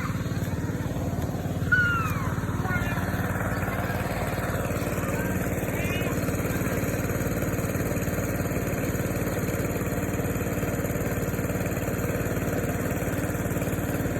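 A small engine running steadily, with a brief high, curving sound about two seconds in.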